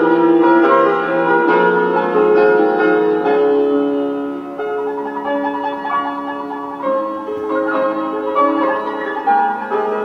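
Instrumental keyboard music led by piano: held chords and notes that change every second or so.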